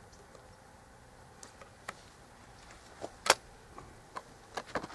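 Scattered clicks and light knocks of a shotgun being handled and brought up to the shoulder, about eight in all, the loudest a sharp click about three seconds in.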